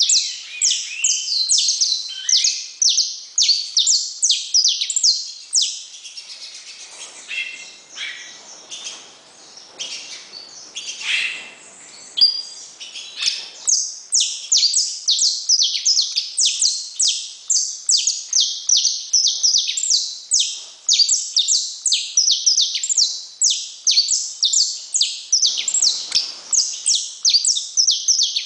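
Saffron finch (canário-da-terra) singing: a fast, steady run of high, downward-sweeping notes, about three a second, broken by a softer, more varied passage in the middle.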